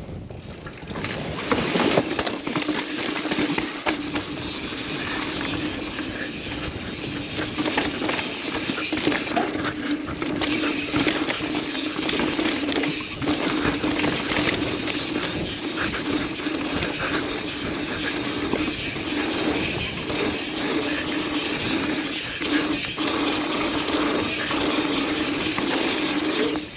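Yeti SB150 mountain bike descending a dirt jump trail: the rear hub's freewheel gives a steady ratchet buzz while coasting, mixed with tyre noise and the knocks and chain rattle of the bike over bumps and landings.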